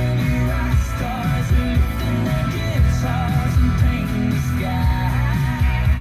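Music with singing from an FM station received on a car radio tuned to 103.7 MHz, playing through the radio's speakers. It cuts off abruptly at the end as the tuner steps up to the next frequency.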